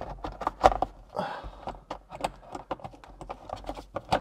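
Irregular clicks and light knocks of plastic parts being handled as a dashcam housing and its cable are fitted at the rear-view mirror, with a brief rustle about a second in.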